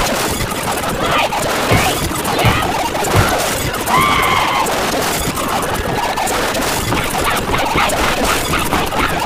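A dense cacophony of many sound clips playing over one another at once: crashes and clatter, squeals, and snatches of voices and music, with a few heavier thumps in the first few seconds and a squealing tone about four seconds in.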